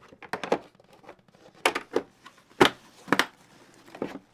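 A hard carrying case for a scale being shut and handled: a series of about six sharp clacks and knocks, the loudest about two and a half seconds in.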